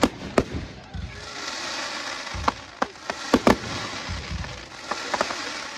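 Display fireworks going off: aerial shells bursting in a rapid string of sharp bangs, with a loud rushing hiss that swells and fades twice between the volleys.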